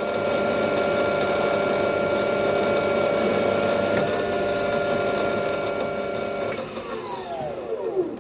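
Small metal lathe running under power feed on a light turning cut, its motor and gears whining steadily, with a thin high whine joining for a second or so. About six and a half seconds in the lathe is switched off, and its whine falls in pitch as it spins down to a stop near the end.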